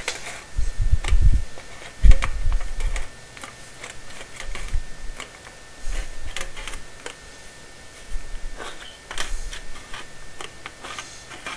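Irregular clicks and light metallic knocks from a hand-squeezed flue pipe dimpler and sheet-metal flue pipe being handled, with a couple of heavier thumps in the first two seconds.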